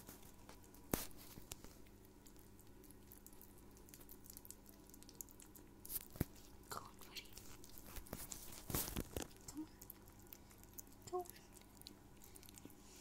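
Kittens chewing and lapping wet cat food from a bowl: faint, scattered wet smacks and clicks, a few louder ones near the middle.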